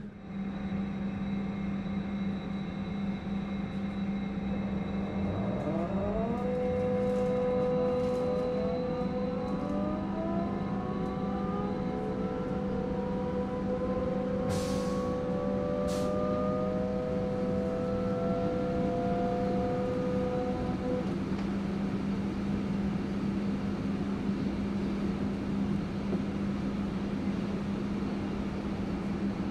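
AEG/MAN/Siemens DT1 U-Bahn train's three-phase AC traction drive: a steady hum, then from about six seconds in several whining tones rising slowly in pitch as the train pulls away, over a steady higher tone that stops about twenty seconds in. A short hiss and a click come midway.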